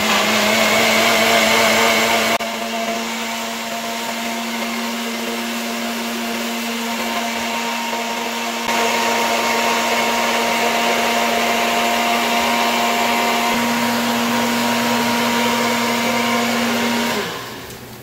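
Electric blender running, its motor holding a steady whine over a whirring rush. The sound gets a little quieter about two seconds in and louder again around nine seconds. The motor cuts off about a second before the end.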